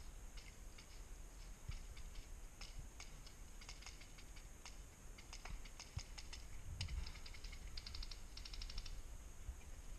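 Airsoft guns firing on the field: scattered sharp clicks of single shots, then two short rapid full-auto bursts about eight seconds in. A dull low thump comes just before the bursts.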